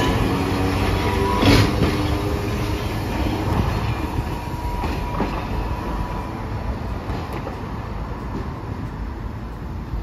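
Hiroshima Electric Railway tram running on street track, its wheels rumbling on the rails, with one sharp clank about a second and a half in. The sound slowly fades.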